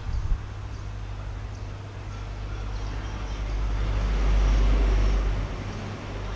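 Low rumble of road traffic that swells about four seconds in as a vehicle passes and then fades. Just after the start there is a single light clink of a spoon against a small ceramic bowl.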